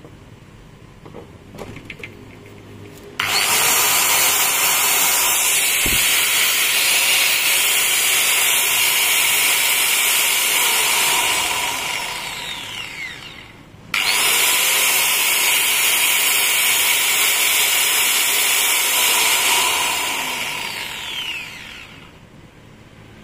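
Maktec MT958 angle grinder test-run after repair, switched on twice. Each time its motor comes up to speed at once, runs steadily for several seconds with a high whine, then winds down with falling pitch after switch-off.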